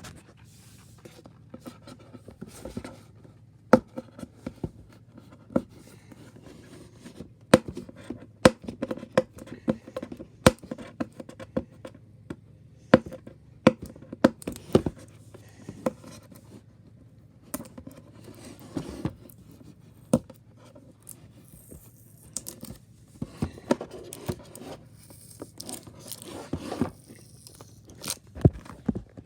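Headset packaging being handled and opened: irregular sharp clicks and knocks mixed with scraping, rustling and tearing.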